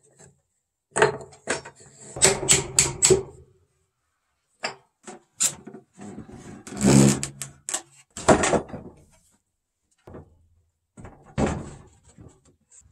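Wooden boards being handled: a quick run of knocks as shelf boards are fitted into a wooden frame, a longer scrape of wood sliding on wood midway, and scattered thuds of planks set down on a wooden workbench.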